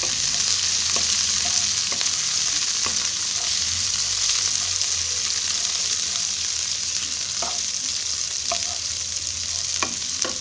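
Chopped onions and other curry ingredients sizzling steadily in hot oil in a pan while being fried until lightly browned, with scattered clicks and scrapes of a utensil stirring them.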